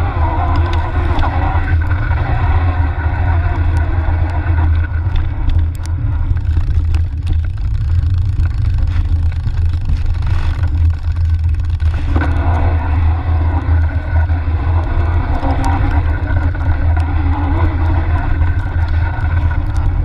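Steady low rumble of a fat-tyre mountain bike rolling over a leaf-covered dirt trail, heard through a camera mounted on the bike: tyre noise and frame vibration, with wind on the microphone.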